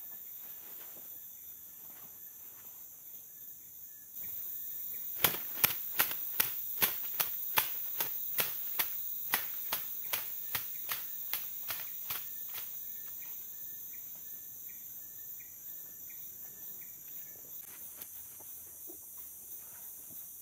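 Steady high-pitched drone of forest insects. A run of about twenty sharp clicks, roughly three a second, starts about five seconds in and fades away over some seven seconds.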